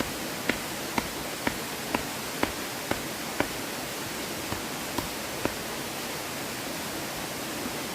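A steady rush of flowing river water, with a run of sharp knocks about two a second for the first few seconds and three more a couple of seconds later.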